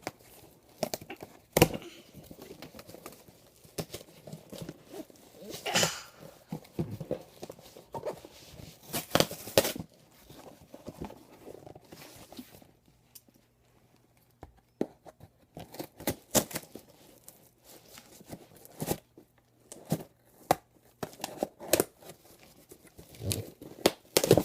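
A package being torn open: packaging tearing and crinkling in irregular bursts, with sharp clicks and snaps.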